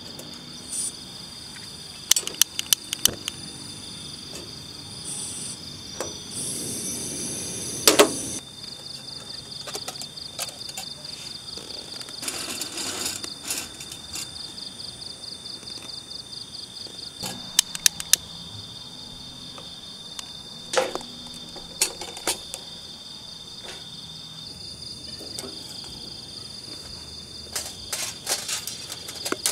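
Crickets chirping steadily, with scattered sharp metallic clicks and clinks from steel tongs and charcoal briquettes being handled at a camp gas stove, and a short hiss about six seconds in.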